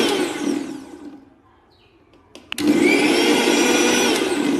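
Bajaj Rex 500 W mixer grinder motor running at full speed with a high whine, switched off just after the start and winding down over about a second. After a short pause and a click, it spins up again and runs for about two seconds before starting to wind down.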